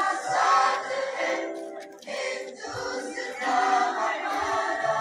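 Music: a choir singing over a steady held accompaniment.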